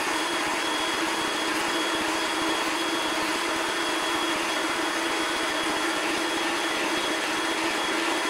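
Bandsaw running steadily as its blade cuts a series of shallow slots into a block of HDPE plastic.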